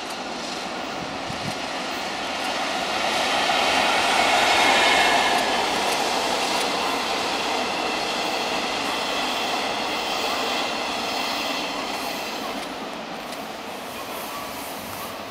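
Freight-type electric locomotive towing unpowered E6 series Shinkansen cars past at speed: a steady rumble and clatter of wheels on rails that builds to its loudest about five seconds in and then slowly fades.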